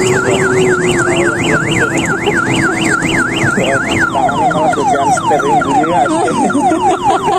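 Electronic siren sound effect from a kiddie electric ride-on train, warbling up and down about five times a second, then switching about four seconds in to quick repeated falling sweeps, with a steady tone underneath.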